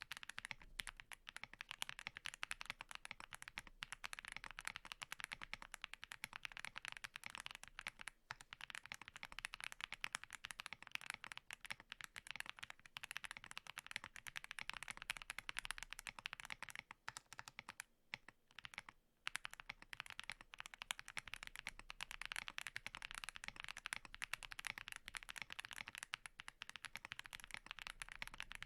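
Typing test on a Mammoth75 mechanical keyboard fitted with Rococo tactile switches: a fast, continuous run of keystrokes, pausing briefly about 8 seconds in and again around 17 to 19 seconds.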